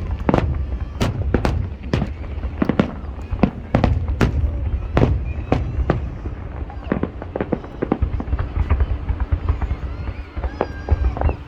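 Fireworks display: a rapid, irregular run of bangs and cracks over a steady low rumble, thinning out for a few seconds near the end.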